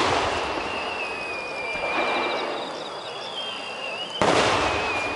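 Aerial firework shells booming: the echoing tail of one burst at the start, then a second sharp boom about four seconds in. A thin high whistle sounds between them.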